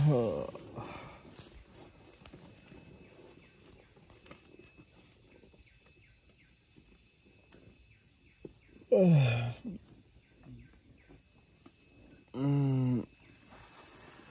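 Insects, crickets or cicadas, trilling steadily and high. Three loud pitched calls break through: one at the start and one about nine seconds in, each sliding down in pitch, and a short flat one about twelve seconds in.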